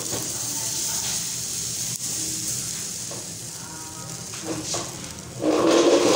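Cheela batter sizzling on a hot, ghee-greased iron tawa as it is poured and spread with a steel ladle; the sizzle is strongest in the first few seconds and then fades. A brief louder voice near the end.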